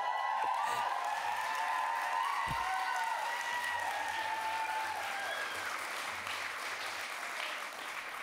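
Audience applauding and cheering, with many high whoops over the clapping in the first few seconds. The applause starts to die down near the end.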